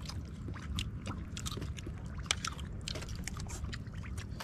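Water lapping and splashing lightly against a small boat's hull at sea: irregular small splashes and ticks over a steady low rumble.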